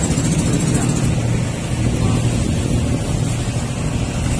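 Outrigger fishing boat's engine running steadily under way, a constant low drone.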